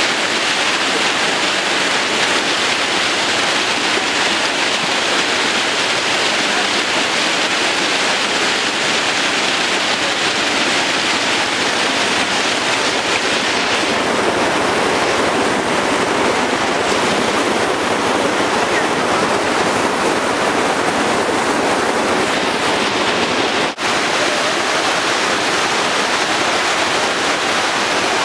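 Fast, muddy flash-flood water rushing and churning in standing waves, a steady loud wash of noise. It drops out for an instant about 24 seconds in and then goes on.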